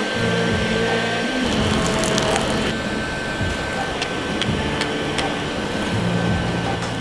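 Hair dryer used as a forge blower running steadily, blowing air into the burning fuel, with a thin steady whine and scattered sharp crackles from the fire.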